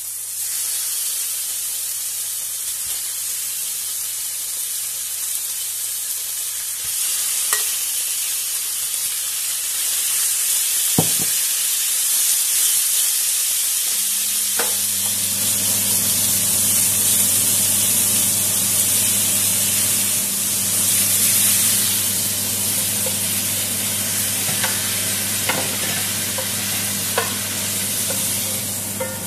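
Marinated chicken thigh pieces sizzling as they fry in an oiled pan, with occasional sharp clinks of a metal spoon against the pan and bowl. A low steady hum comes in about halfway.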